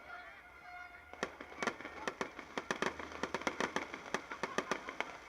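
Fireworks going off: after a quieter first second, a rapid, irregular string of sharp bangs and pops, several a second.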